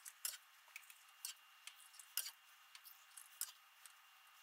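Faint scattered clicks and taps of a ladle against the pot and glass jars as brine is ladled into jars of eggs.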